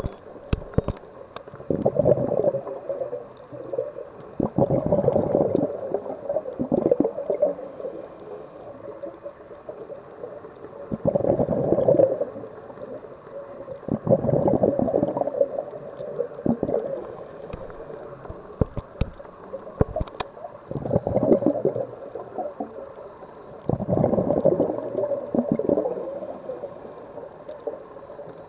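Scuba diver's exhaled bubbles gurgling from the regulator, recorded underwater, in bursts about every three to four seconds, with quieter stretches between breaths.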